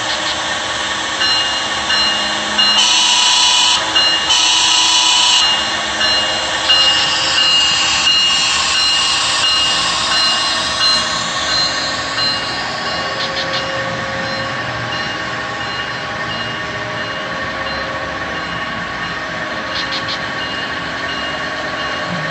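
HO-scale model Amtrak electric locomotive's sound unit sounding two horn blasts about three and four and a half seconds in, over a steady electric hum, then a whine that changes in pitch as the train pulls out of the station with its coaches rolling past.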